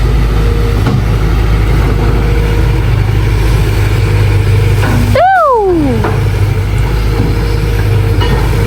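Excavator's diesel engine running steadily. About five seconds in, a short tone slides sharply down in pitch.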